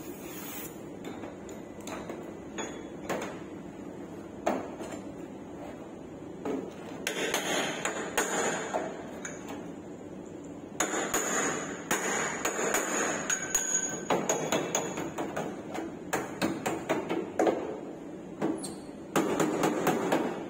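Hammer blows on car body metal: irregular knocks with noisier spells of work between, turning into a quick run of strikes, about three a second, near the end.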